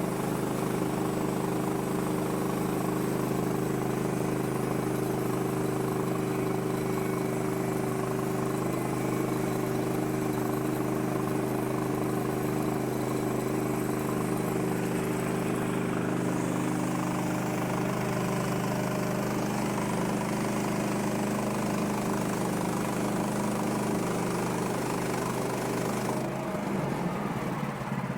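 Woodland Mills HM130 Max portable bandsaw sawmill running steadily, its engine under load as the blade cuts a thin flitch off a log. The engine sound changes and drops away near the end as the cut finishes.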